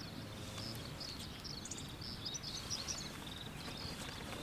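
Small birds chirping, many short high calls in quick succession, over a faint steady low outdoor rumble.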